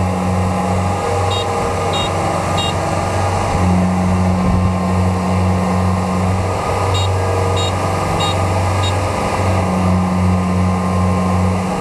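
Kubota combine harvester's diesel engine running hard as the tracked machine strains in deep, sticky mud, its low drone swelling and easing in stretches. Short high beeps sound in small groups about two-thirds of a second apart, once a little over a second in and again past the middle.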